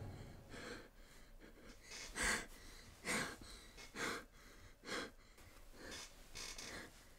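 A frightened woman breathing quickly and unevenly, about a breath a second, with a few breaths louder than the rest.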